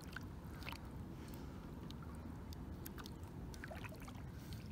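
Faint water drips and small trickles around a kayak on a lake, scattered light ticks over a low steady rumble.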